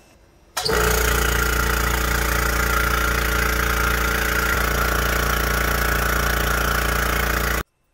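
Kobalt Quiet Tech 26-gallon oil-free twin-cylinder air compressor running loud: a steady motor hum under a strong hiss of air leaking inside the cylinder, the sign of a piston cup worn thin and torn so air escapes past the piston. It cuts in about half a second in and stops abruptly near the end.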